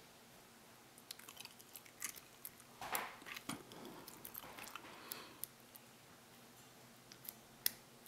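Faint, irregular clicks and scrapes of a steel lock pick and tension wrench working the pin stack of a brass Bricard padlock during single-pin picking, with a few softer handling rustles. The lock holds spool security pins.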